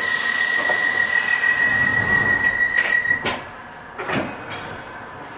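Interior of a London Underground 1973 Stock train standing at a station. A steady high-pitched tone sounds and cuts off about three seconds in. The doors then close with two knocks a second apart, and the cabin noise drops.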